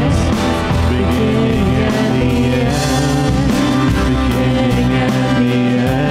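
Live worship band playing a rock-style song: electric guitar, bass and drum kit with cymbals, and a singer's voice over them.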